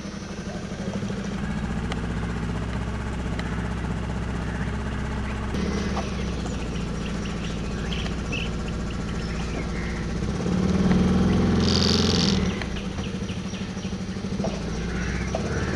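Boat engine running steadily while the boat cruises along a narrow channel, getting louder for about two seconds a little past the middle.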